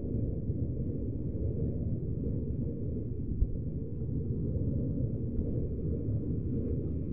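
Moving passenger train crossing a bridge: a steady low rumble of the wheels on the track, heard from inside the coach by the window, with one brief knock about three and a half seconds in.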